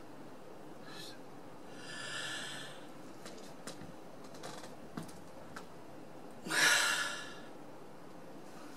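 A man's breathing in a pause of speech: a soft breath about two seconds in and a louder one starting suddenly near seven seconds, with a few faint clicks between.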